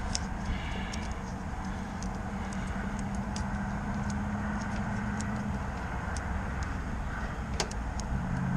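Steady low mechanical drone with a humming tone that fades in and out, and a few faint light clicks scattered through it.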